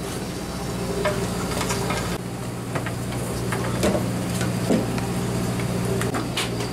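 Steady low hum of a party fishing boat's machinery running at idle, with a few light clicks and knocks on deck.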